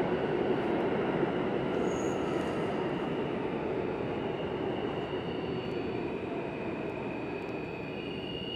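New York City subway train rumbling through the tunnel, steadily fading as it moves away. Near the end a faint steady high wheel squeal comes in.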